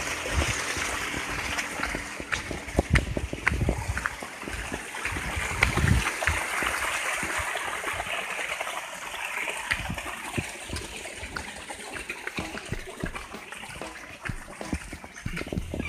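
Running water, a steady splashing trickle, with a few low thumps in the first few seconds.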